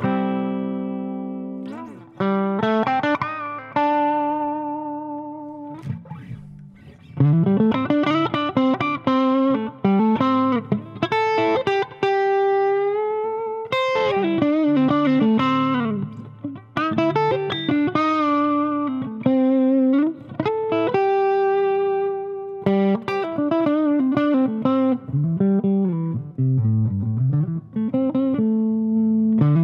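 Electric guitar played through an Electro-Harmonix MIG 50 50-watt amp head and 2x12 cabinet with no drive pedals, turned up so the amp squashes the sound a bit. It plays sustained notes and chords with frequent bends and vibrato glides in pitch.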